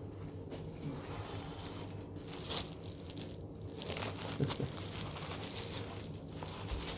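Faint rustling and handling noises over a steady low hum, with small knocks about two and a half and four and a half seconds in.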